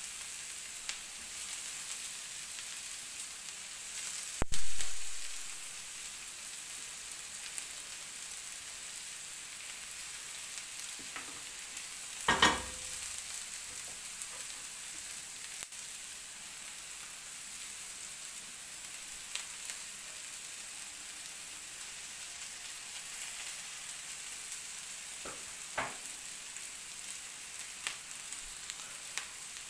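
Meatballs and sliced vegetables sizzling steadily in a hot frying pan. A sharp knock comes about four seconds in, a second knock with a short ring about twelve seconds in, and a few small clicks near the end.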